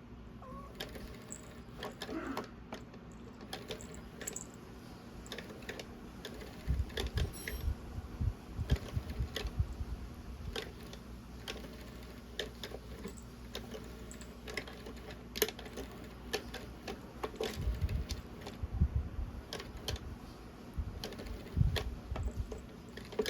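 A cat toy clicking and rattling irregularly as a cat plays with it, with a few clusters of soft thumps.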